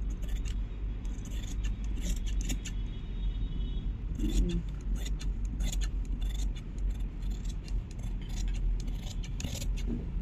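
Large tailor's shears cutting through cloth: a run of irregular sharp snips and blade clicks, over a steady low hum.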